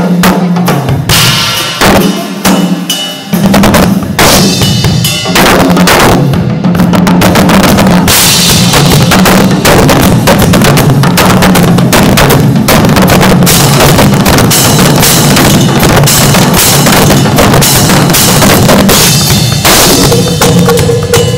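Solo on a DW drum kit: separate heavy hits for the first few seconds, then a fast, unbroken run of drums and cymbals. Very loud, near the limit of the iPod's microphone.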